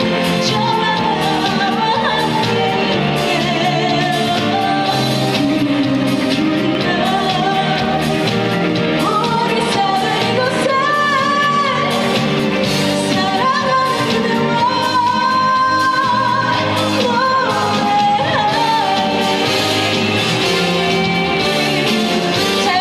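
A female vocalist sings a trot song live over a loud band backing track, her held notes wavering with vibrato.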